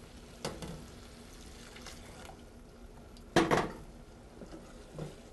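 Risotto rice simmering in a stainless steel saucepan as hot stock is added. Utensils knock sharply against the pot, once about half a second in and louder about three and a half seconds in, with a smaller knock near the end.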